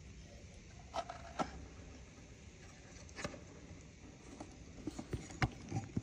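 A handful of light, scattered clicks and knocks from a wooden nest box being handled, the sharpest about a second and a half in and near the end.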